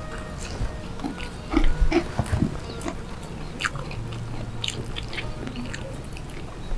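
Close-up eating sounds: chewing and lip-smacking, heard as many short, irregular wet clicks as rice and side dishes are eaten by hand.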